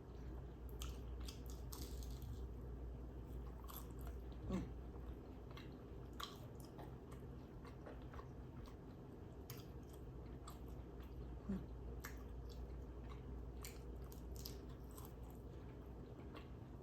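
Close-miked chewing of small crispy fried egg rolls: scattered crunches and wet mouth sounds, with two brief pitched sounds partway through.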